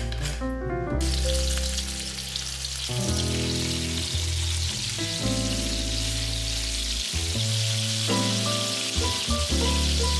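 Ground beef patties sizzling as they fry in olive oil in a frying pan, the sizzle starting about a second in. Background piano music plays under it.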